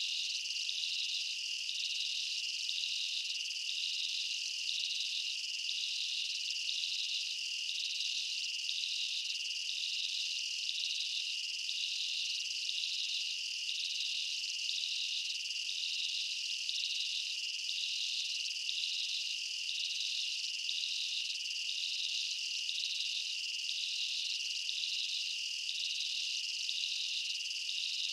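Insect chorus of crickets or cicadas: a steady high-pitched trill with a second high note pulsing evenly about twice a second.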